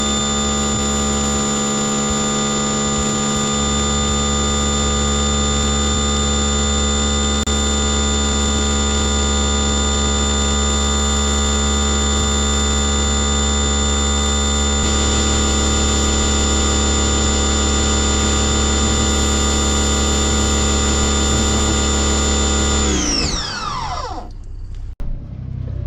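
Pressure washer running steadily with a high motor whine, then winding down in pitch and stopping about three seconds before the end.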